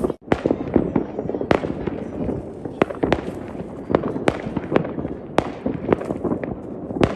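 Many fireworks going off at once: a continuous rumble of booms with sharp cracks and pops every fraction of a second, cutting out for a moment just after the start.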